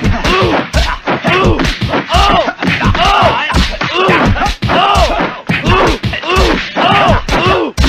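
A voice crying out again and again, about two cries a second, each rising and then falling in pitch, over loud thuds and whacks.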